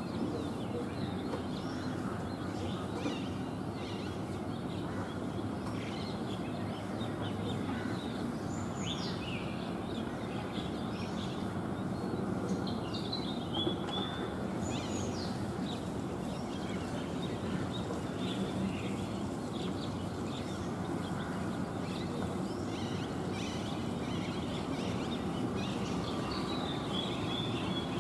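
Scattered chirps and a few quick rising whistles of small birds, over a steady low background rumble of outdoor environmental noise.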